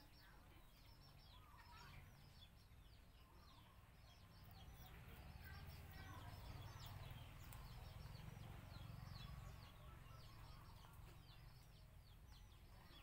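Faint small birds chirping: a steady stream of short, quick, falling chirps, over a faint low rumble.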